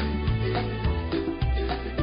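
Background music: a rhythmic instrumental track with plucked notes over a repeating bass line.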